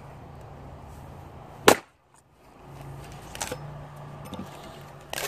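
Cold Steel Trail Boss axe's steel head striking a standing firewood round with one loud sharp crack about a second and a half in, then two lighter knocks. The round does not split because of a big knot in it.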